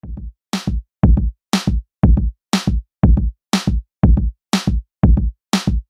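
Background music with a steady drum-machine beat: low kick drum and a bright snare or clap hit alternating, about two beats a second.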